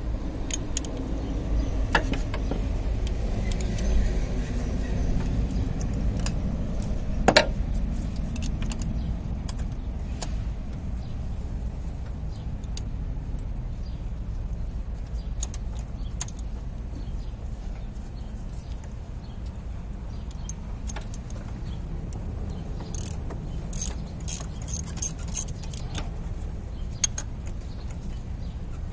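Hand tools clinking and clicking as a spark plug socket, extension and ratchet are worked in the spark plug wells of a Honda 3.5 V6. There is a sharp metal knock about seven seconds in and a run of quick clicks near the end, over a steady low rumble.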